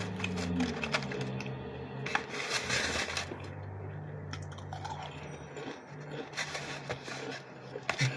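Close-up eating sounds: chewing with wet mouth clicks and the crackle and scrape of handling a messy pastrami sandwich, over a steady low hum.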